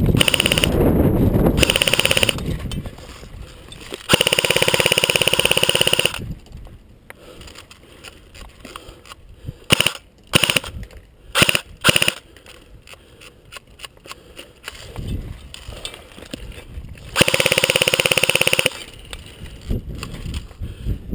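Airsoft guns firing three long full-auto bursts of rapid, even shots, the first at the start, one about 4 s in and one about 17 s in, with a few scattered sharp snaps in between.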